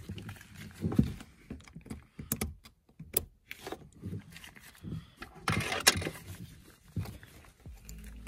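Handling noises of rubber-gloved hands working a rag and the plastic fuel-line quick-connect on top of a car's in-tank fuel pump module: scattered clicks, taps and rustles, with a longer rustle about five and a half seconds in.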